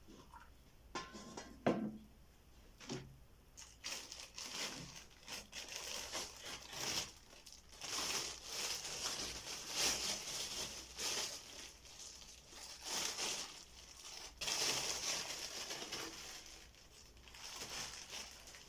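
Crinkling and rustling, as of something being handled or crumpled, in uneven spells, with a few sharp knocks in the first three seconds.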